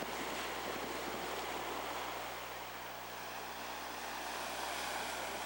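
Ocean surf washing onto the beach, a steady rush of breaking waves that eases slightly midway and swells again, with some wind.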